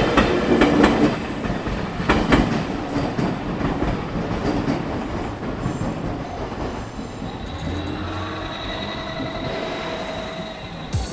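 A JR Minobu Line electric train passing over a level crossing and moving away. Its wheels clatter over the rail joints for the first couple of seconds, then the running noise slowly fades, and a faint steady whine comes in over the last few seconds.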